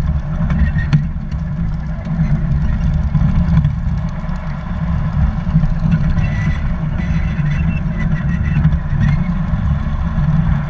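Garden-railway train rolling along its track, heard from a camera riding on one of its cars: a steady low rumble from the wheels and the locomotive's drive, with a few faint clicks.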